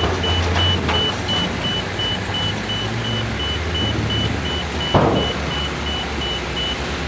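A heavy machine's reversing alarm beeping quickly, about three high beeps a second, over the low running of its engine; the beeping stops near the end. A single sharp clank about five seconds in is the loudest moment.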